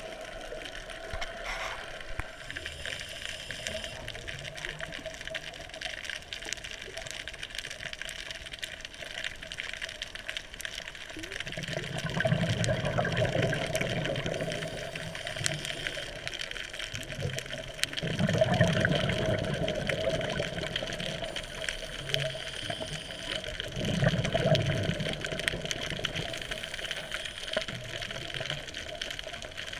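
Scuba diver breathing underwater through a regulator: exhaled bubbles gurgle in three long bursts about six seconds apart in the second half, over a steady hiss.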